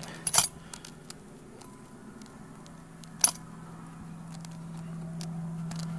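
Metal spoon clinking against a stemmed glass while stirring, with a few light taps near the start and one sharper clink about three seconds in. Underneath, a low steady hum grows a little louder toward the end.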